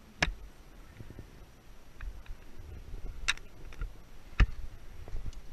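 Three sharp knocks against the camera, one just after the start, one about three seconds in and the loudest about a second later, with fainter clicks between, over a low wind rumble on the microphone.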